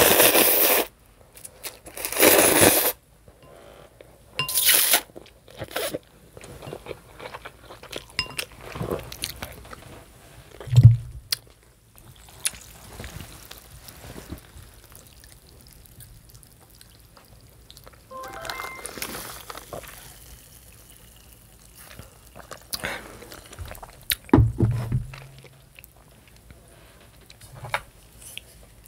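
Close-miked slurping of noodles in chicken broth: three loud slurps in the first five seconds, then quieter chewing and small mouth sounds, with two short dull thuds about eleven and twenty-four seconds in.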